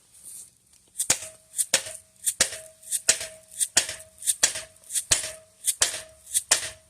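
A 5 lb dead blow hammer striking a 9/16 socket on a ratchet extender, driving the shaft into a Casablanca K55/XLP ceiling fan. About nine even blows, roughly one every two-thirds of a second, starting about a second in, each with a short metallic ring.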